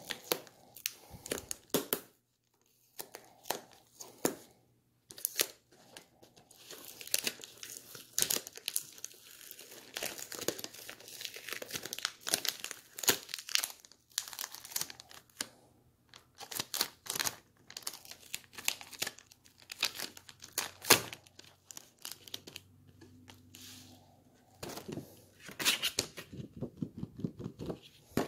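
Takeout food wrapping being crinkled and torn, in irregular bursts of rustling with short pauses.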